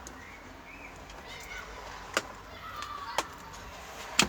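Three sharp clicks about a second apart: small knocks from handling meter probes and the TV's power supply board while measuring its voltages.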